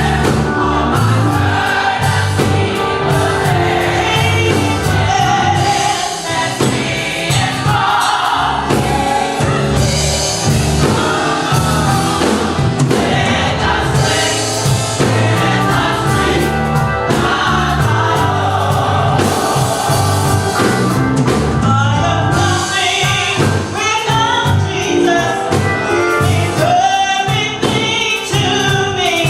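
Gospel choir singing with a band accompaniment of bass and drums.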